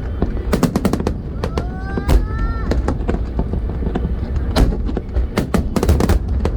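Aerial fireworks bursting in quick succession: many sharp bangs and crackles over a steady low rumble, with a brief rising whistle about two seconds in.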